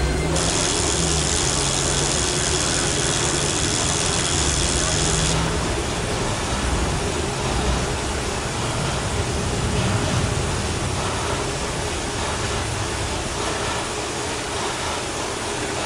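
Indoor bike trainer droning steadily under hard pedalling at about 340 watts. A high hiss runs over the first five seconds and cuts off suddenly.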